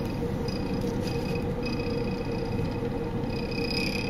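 Magnetic stirrer running under a beaker of solution: a steady low rumble with a faint constant hum and high whine above it.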